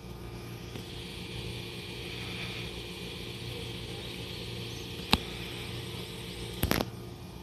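Steady low hum of a stationary electric train's onboard equipment, with a high insect buzz over it. A sharp click about five seconds in and a short clatter of clicks near the end stand out as the loudest sounds.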